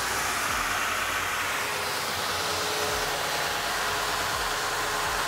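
Reichmann Profi 4 Vario ski-and-board grinding machine running with a snowboard base pressed onto its abrasive belt for the pre-grind: a steady, even grinding noise, with a steady hum joining about two seconds in.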